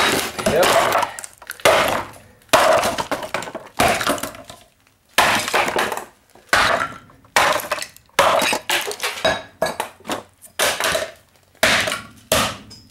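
Axe blows chopping apart a wooden speaker cabinet, about a dozen sharp smashing impacts roughly a second apart. Each blow is followed by a brief crackle of splintering board and scattering debris.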